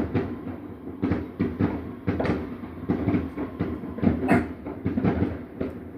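Fireworks going off in a rapid, irregular string of bangs and pops, several a second, with the loudest bursts about two, four and five seconds in.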